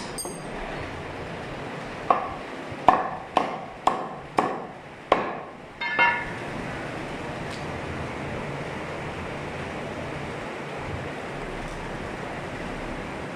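A meat cleaver chopping through goat rib bones on a wooden block, cutting the rack into chops. There are seven sharp strikes about half a second apart, each ringing briefly, then only a steady background hum.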